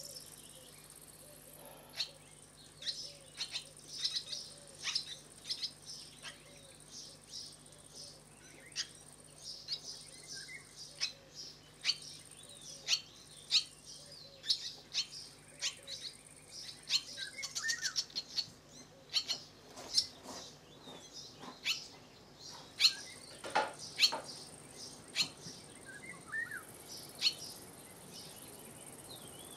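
Barn swallows at a mud nest: a run of short, high chirps repeated every second or so, busiest in the middle, with one louder burst near the end.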